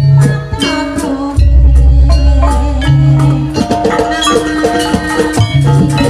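Loud live gamelan-style ensemble music: metallophones struck with mallets in quick runs over drums and percussion. Deep, heavy low notes come in about a second and a half in and keep going.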